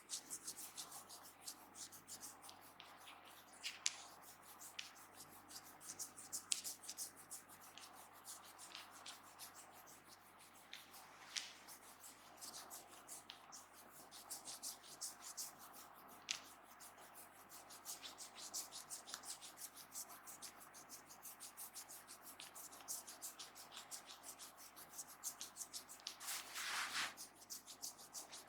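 A barber's hands rubbing and kneading during a head massage: a dense, irregular crackle of fine ticks and scratchy rubbing, with a few sharper clicks and a longer, louder rub near the end.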